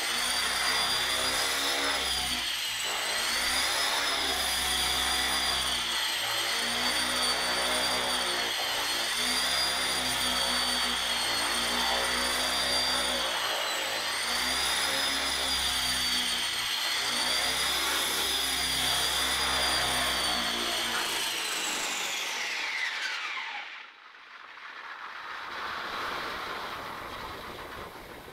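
Align T-Rex 450 Pro electric RC helicopter in flight, its brushless motor and rotor giving a steady high whine that wavers slowly up and down in pitch as it hovers. About 22 seconds in, the whine glides down and dies away as the rotor spools down after landing.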